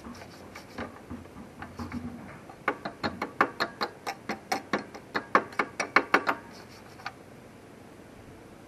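A hand tool working on the riding mower's metal frame: sharp metallic clicks in a quick series, about four or five a second for a few seconds, with a few scattered clicks before it.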